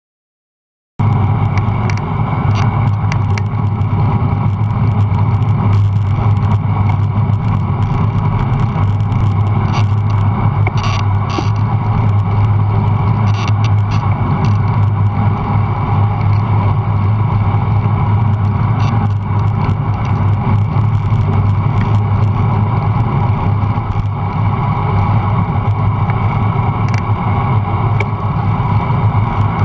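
Steady wind and road noise from a camera mounted on a road bike riding in a group, starting abruptly about a second in, with a strong low rumble and a few light clicks.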